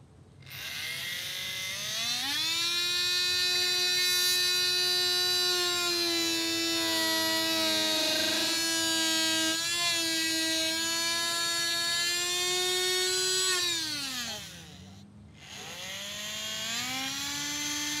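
Oscillating multi-tool with a plasterboard cutting blade cutting into plasterboard. Its motor winds up to a steady high whine, dips slightly under the cut, then winds down and stops about fourteen seconds in. It starts again a second later and runs until near the end.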